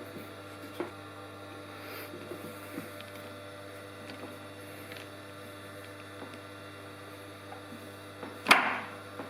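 Steady low electrical hum with small scattered clicks and taps, and one sharper knock about eight and a half seconds in.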